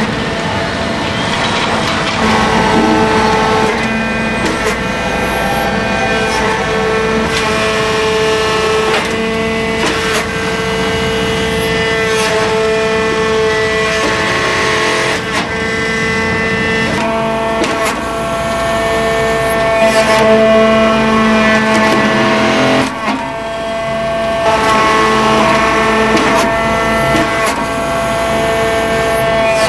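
Wood briquette press and its silo feed running: a steady, loud mechanical whine made of several tones, with irregular knocks and clunks.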